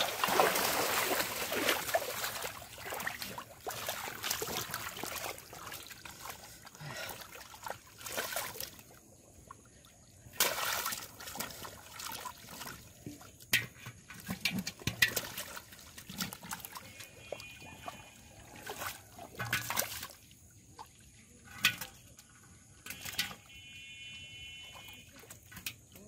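Water splashing in shallow floodwater, heaviest in the first couple of seconds as a foot kicks through it, then scattered splashes and slaps as large fish thrash in the shallows and are handled.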